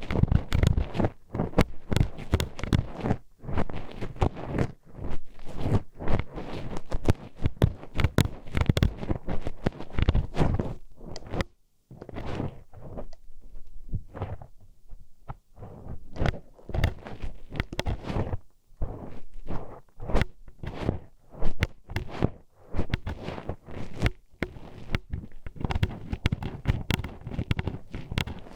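Metal hairpin poked into the ear of a binaural ASMR microphone, scraping and tapping in close, irregular clicks and scratches, with a few short pauses about halfway through.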